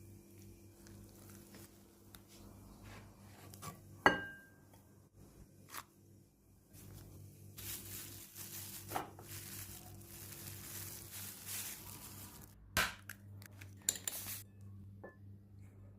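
Kitchen handling sounds: scattered clinks and knocks of utensils and dishes, with one sharp ringing clink about four seconds in, over a steady low hum.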